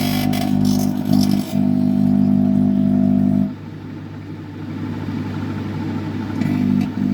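Modified microwave oven running at full power: a loud, steady hum from its transformer and magnetron, with a crackle in the first second and a half. About three and a half seconds in the hum cuts out, leaving a softer whir, and it starts again near the end.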